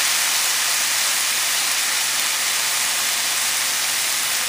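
Rice sizzling steadily as it fries in hot oil in a pan, the grains toasting to golden brown.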